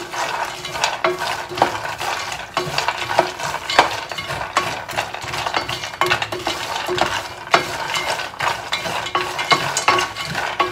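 Wooden spoon stirring roasted cashews in olive oil in a stainless steel skillet: a continuous, irregular run of scrapes against the pan and clicks of nuts knocking together.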